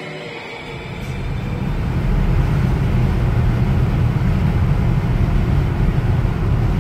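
A moving car's low road-and-wind rumble, swelling over the first couple of seconds and then holding steady and loud.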